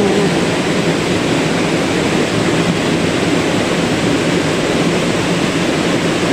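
Steady rushing of river water, a loud, even noise with no breaks.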